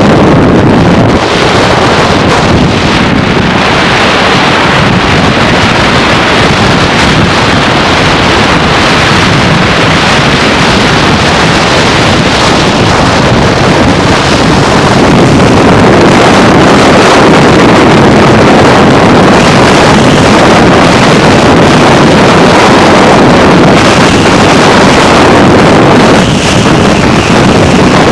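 Loud, steady rush of wind and road noise from a moving car, the wind buffeting the microphone. It grows a little louder about halfway through.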